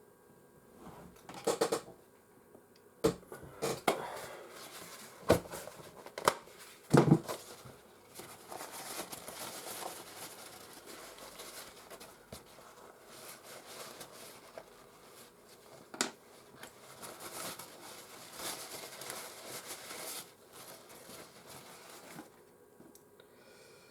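Small plastic parts of a PS4 disc drive being handled and cleaned: several clicks and knocks in the first few seconds, then a long stretch of light scratchy rubbing, with one sharp click about sixteen seconds in.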